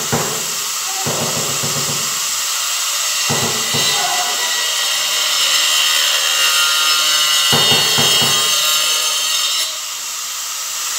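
A steady hiss, with a few rough scraping sounds at irregular moments as floor tiles are worked into a wet mortar bed.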